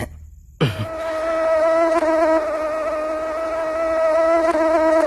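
Mosquito buzzing: a steady, unwavering whine that starts about half a second in, just after a short falling sound.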